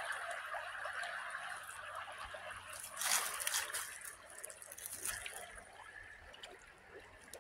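Shallow creek water running over a riffle, a steady trickling rush that grows fainter toward the end, with a brief louder rustle about three seconds in.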